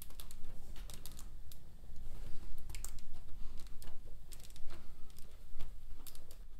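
Irregular light clicks and taps from plastic Lego bricks as hands press a Lego mould box down onto a glass sheet, several clicks a second.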